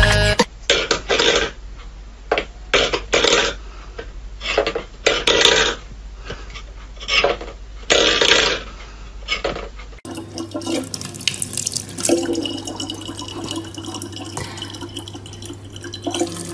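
A stainless steel bowl knocked and scraped about on a wooden floor by a cat's paw, in irregular metallic clatters. About ten seconds in it gives way to a kitchen tap running a thin, steady stream of water into a sink.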